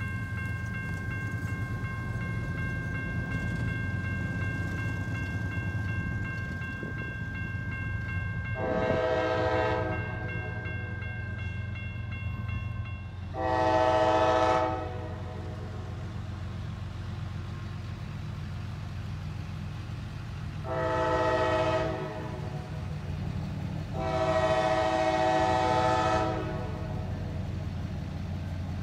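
CSX freight locomotive's air horn sounding the grade-crossing signal as the train approaches: two long blasts, a shorter one, then a final long one. Under the horn is the steady low rumble of the oncoming train.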